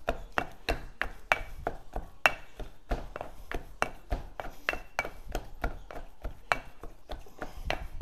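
Wooden pestle pounding in a white stone mortar, mashing boiled potato together with shredded salt cod, in steady knocks about three a second.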